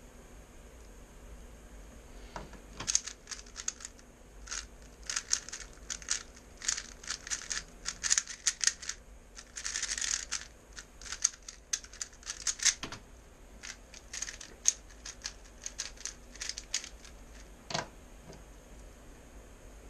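A 3x3 speed cube being turned fast by hand: its plastic layers click in quick, dense flurries, with a brief run of near-continuous turning about halfway through. A single thump comes near the end.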